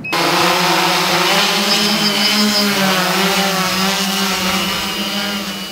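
Large camera octocopter drone hovering, its eight electric motors and propellers making a loud, steady buzz whose pitch wavers slightly. It grows a little fainter toward the end.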